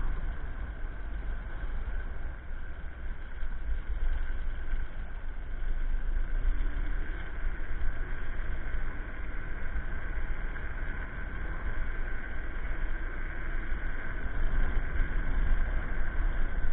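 Electric scooter riding along a paved path, heard from a camera on board: wind rumbling on the microphone and tyre noise, with a steady high whine from the motor.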